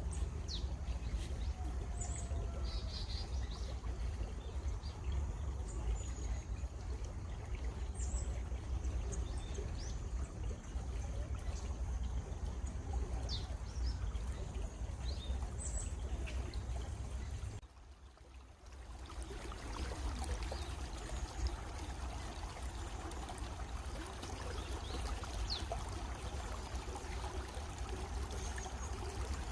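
Stream water running steadily, with short bird chirps scattered throughout. About two-thirds of the way in, the sound drops away for about a second, then comes back.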